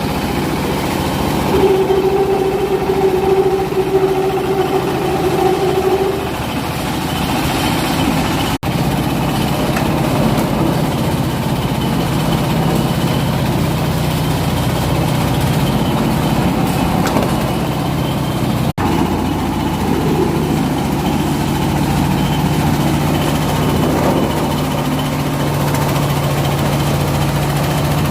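Coconut husk fibre-separating machine running steadily, a continuous mechanical noise with a low hum, and a higher whine between about two and six seconds in.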